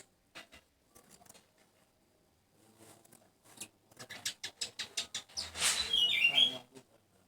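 Asian golden weaver chattering loudly: a string of sharp dry clicks that quickens about four seconds in, then a loud buzzy burst with wavering high notes near the end.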